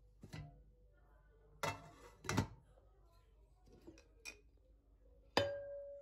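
Glass pot lids clinking and knocking against their pots as they are lifted and set back: a handful of sharp clinks, the one about five seconds in ringing briefly.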